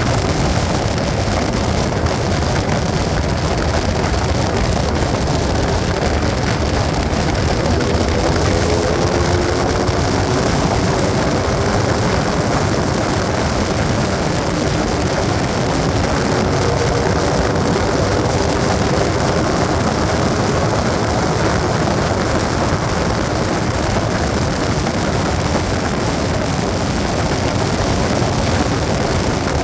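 A motorcycle cruising at highway speed in fifth gear: steady rushing wind noise with the engine running underneath. A faint pitched hum rises out of the noise a couple of times.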